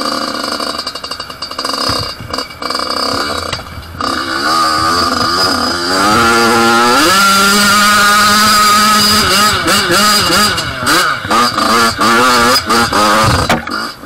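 Yamaha YZ two-stroke dirt bike engine on a steep trail climb. It runs at choppy, uneven revs for the first few seconds, then revs up sharply into its powerband about six seconds in and holds a high note for a couple of seconds. After that the revs rise and fall repeatedly with the throttle.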